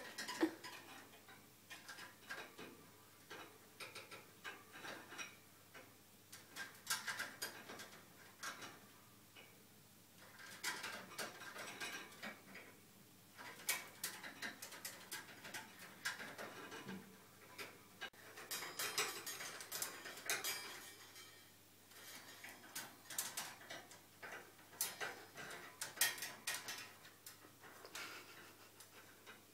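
Quaker parrot working its building material into place: irregular clusters of light clicks, taps and rattles from its beak and the material, with short pauses between bursts.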